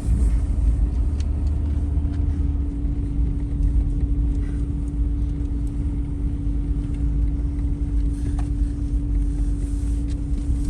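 Road noise inside a moving car's cabin: a steady low rumble from the tyres and engine, with a constant hum running through it.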